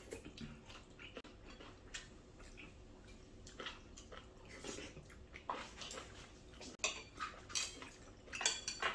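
Eating sounds: spoons tapping and scraping on dishes at irregular moments, a few strikes ringing briefly, with small wet mouth and chewing clicks. The loudest clinks come near the end.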